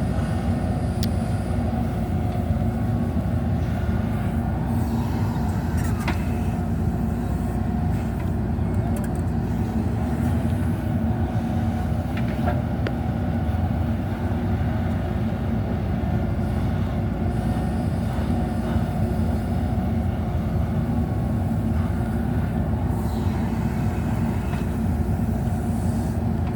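JCB backhoe loader's diesel engine running steadily under work, with a couple of faint knocks along the way.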